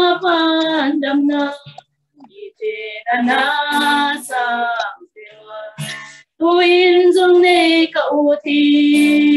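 Two women singing a hymn to Jesus together, unaccompanied, in long held phrases with short breaks between them, about two and five seconds in.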